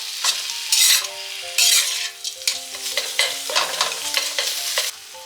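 Minced meat frying in hot oil in a pan over raised heat: a steady sizzle, with several loud scraping strokes as it is stirred. A soft melody plays underneath.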